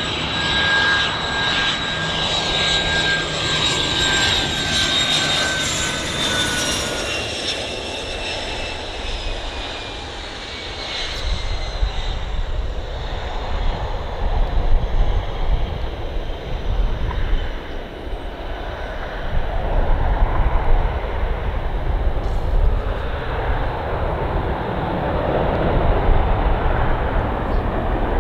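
Bombardier Learjet 45's Honeywell TFE731 turbofans landing. A high whine drops slightly in pitch as the jet passes on final approach, then gives way to a deeper rumble with louder swells as it touches down and rolls out.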